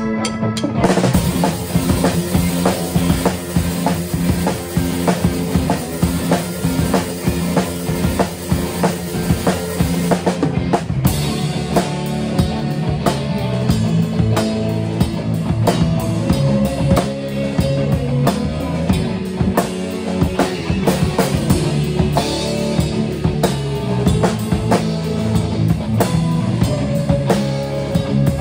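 J-rock band playing live, with the drum kit loudest: kick drum and snare hits driving a dense rock groove. The full band comes in about a second in over a held organ-like keyboard chord.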